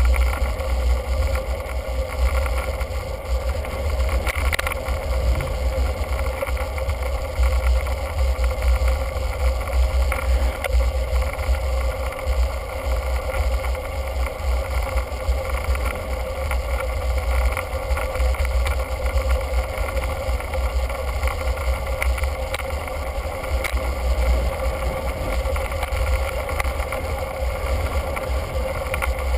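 Wind noise buffeting the microphone of a camera mounted on a moving bicycle, a steady low rumble, with a constant even hum from the ride underneath.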